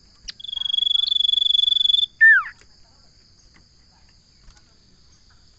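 Common iora (cipoh) calling: a brief high chirp, then a long steady whistle of about a second and a half ending in a quick falling note. A faint, steady, high insect buzz runs underneath.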